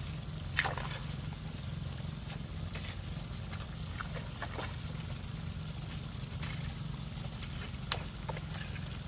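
Hoe blades cutting into and slapping wet paddy mud while a rice-field bank is built up, in scattered short strokes, the sharpest about half a second in. A steady low rumble runs underneath.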